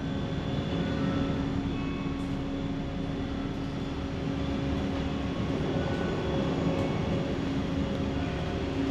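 Steady low rumble of a large passenger ferry underway, with faint soft music over it.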